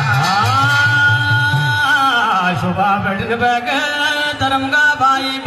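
Male voice singing a Kumaoni jagar chant: a long held note that rises into place and then turns into a wavering, ornamented line. Hudka drum beats at about three a second sound under the first two seconds, then stop.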